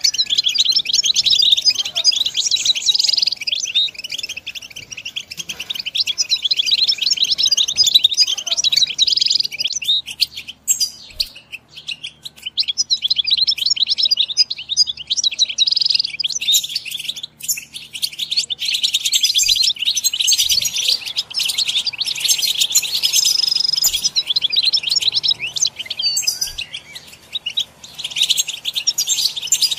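European goldfinch singing: a fast, rambling twitter of high chirps and trills, going on almost without a break, with a couple of short lulls.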